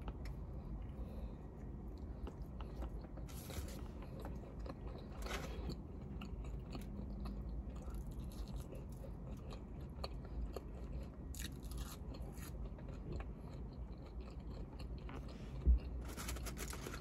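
A person chewing and biting fast food, a Burger King burger and fries, close to the microphone, with a few short rustles of paper wrappers over a steady low hum. A single sharp thump comes near the end.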